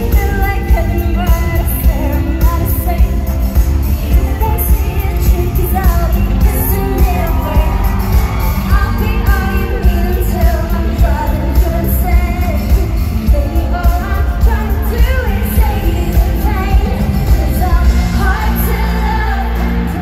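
Live K-pop concert music over a stadium sound system: singing over heavy bass and a steady beat.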